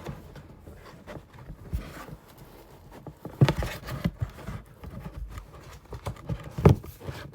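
A cardboard shoebox being handled and opened on a desk: scuffing and rustling, with two sharp knocks, about three and a half seconds in and near the end.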